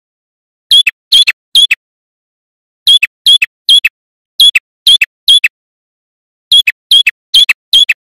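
Male red-headed prenjak, a tailorbird, singing loud, sharp notes in quick groups of three or four, each note dropping in pitch. There is a group about every second and a half, four times.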